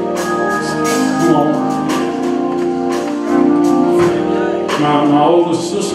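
Church music: organ chords held over a drum beat, with a voice singing over it at times.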